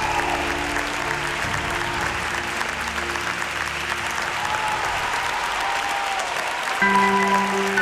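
Studio audience applauding steadily. Near the end the band's instrumental intro comes in suddenly with a sustained chord.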